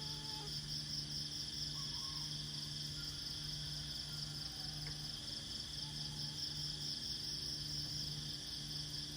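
Steady chorus of insects at dawn, a continuous high-pitched trill. Under it a low hum swells and fades about once a second, with a few faint short chirps.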